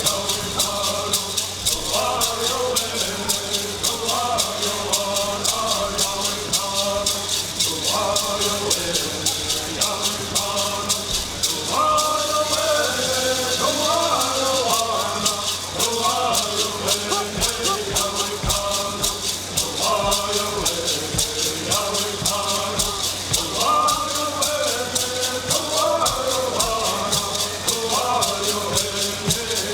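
Traditional Cahuilla bird songs: singers chanting in phrases over a steady, fast shaking of hand rattles.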